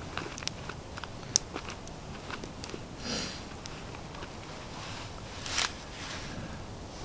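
Small campfire crackling, with scattered sharp pops and ticks. Two brief handling noises cut across it, the louder a short scrape about five and a half seconds in.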